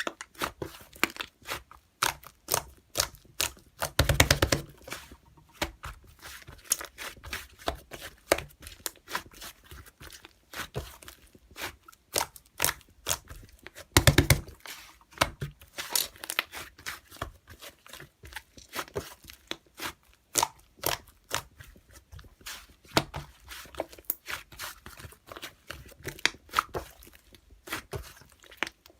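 Slime being worked by hand: a dense, irregular stream of sticky clicks and pops. There are two louder, longer bursts, about four and fourteen seconds in.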